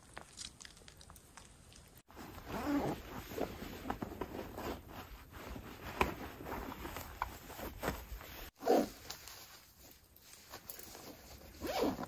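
Rucksack and nylon gear being handled: fabric rustling with many small clicks, and short zip or swish sounds, the loudest about nine seconds in and near the end.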